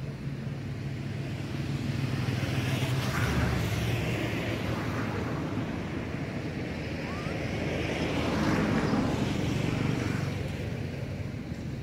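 Motor vehicles passing by twice, their noise swelling and fading over a steady low engine hum. A bird chirps faintly once.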